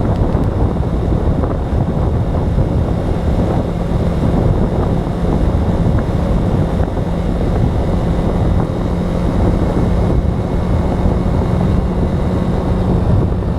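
Motorcycle riding at steady speed: a steady engine note under loud wind rushing over the camera microphone.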